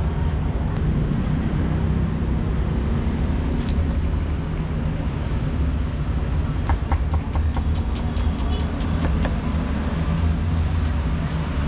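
Cleaver chopping on a wooden chopping board: a quick run of knocks from about six to nine seconds in, with a few single ones around it, over a steady low rumble of street traffic.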